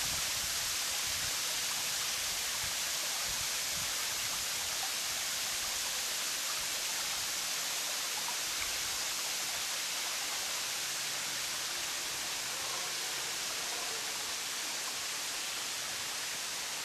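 Steady, even hiss of water falling from a waterfall.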